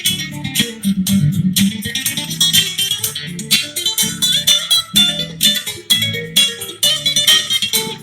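Dance music: plucked strings playing a quick, strongly rhythmic tune.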